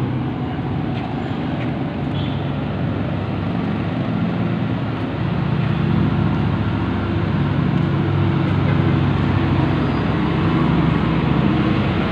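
A motor vehicle engine running steadily close by, its pitch shifting a little now and then, over the noise of street traffic.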